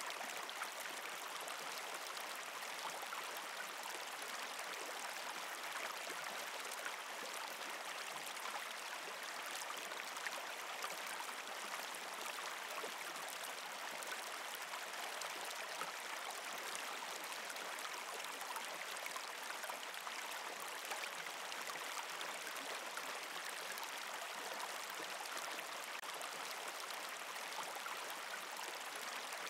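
Steady running water, as of a small stream: an even rushing hiss with no breaks or rhythm.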